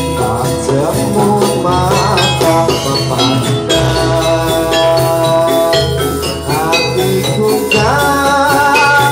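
Javanese gamelan music accompanying a jathilan horse dance: struck metal instruments and gongs ringing in held tones over a steady low beat.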